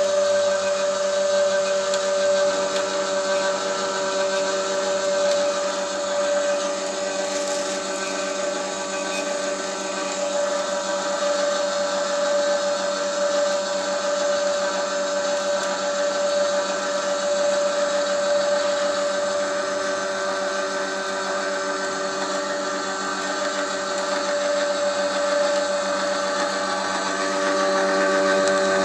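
Small electric screw oil press running steadily as it presses almonds for oil, a constant motor whine with a hiss over it.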